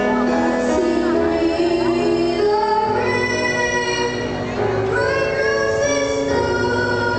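A young child singing into a microphone over instrumental accompaniment, holding long notes that move between pitches.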